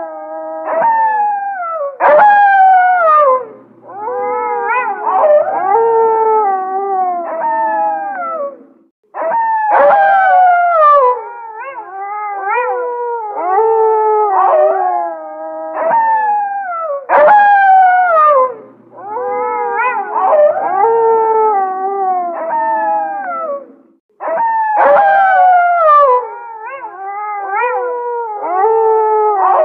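A chorus of gray wolves howling, several voices overlapping in long calls that slide down in pitch, with brief gaps about nine seconds in and again near 24 seconds.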